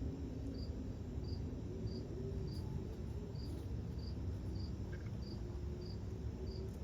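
Insects chirping outdoors on a summer evening, a regular high chirp about one and a half times a second, over a steady low background rumble.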